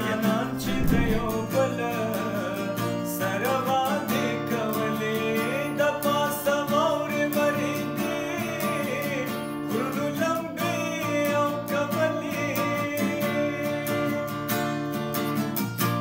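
Background music: a strummed acoustic guitar with a sung melody over it.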